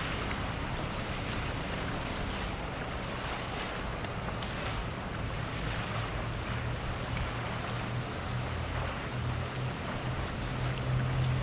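Wind buffeting the microphone over small waves washing on the shore, with a low steady hum that grows louder near the end.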